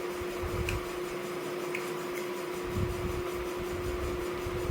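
A steady, even hum at one pitch, with soft irregular low thumps and a few faint clicks over it.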